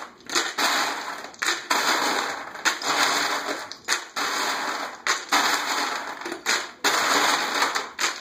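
Ice cubes clattering in repeated bursts, roughly one a second, as handfuls are grabbed from a freezer ice bin and dropped into a plastic pitcher.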